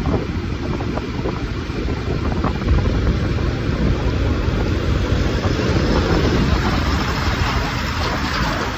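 Steady wind noise on the microphone mixed with the road noise of a vehicle travelling along the highway.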